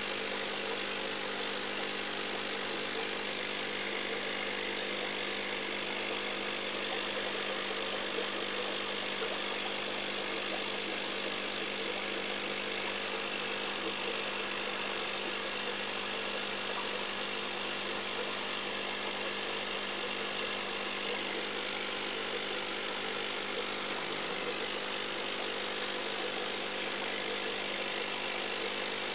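Aquarium pump running, a steady mechanical hum with a constant hiss of moving water.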